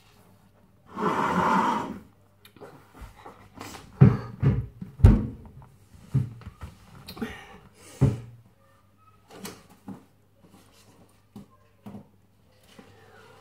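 A slurp through a drinking straw lasting about a second, then a run of thumps and knocks as someone leans and climbs on a kitchen counter, the loudest about four and five seconds in and another near eight seconds.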